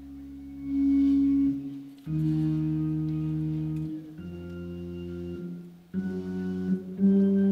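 Hammond-style console organ playing a slow, halting scale, deliberately badly to show an incompetent player. It moves in held chords with a deep bass, each a step higher than the last, broken by short gaps.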